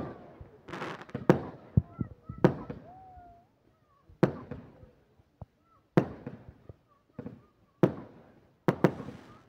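Aerial firework shells bursting overhead: about ten sharp bangs at uneven intervals, each trailing off in an echo.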